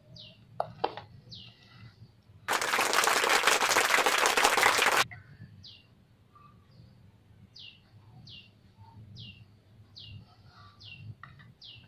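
A bird chirping over and over, short falling chirps about once a second. A couple of clicks come in the first second. Between about two and a half and five seconds in, a loud rushing noise starts and stops abruptly; it is the loudest sound.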